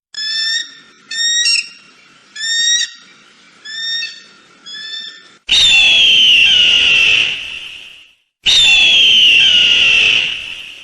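Eagle calls: several short, pitched chirping calls over the first five seconds, then two long, loud screeching calls that fall slightly in pitch, the first ending abruptly.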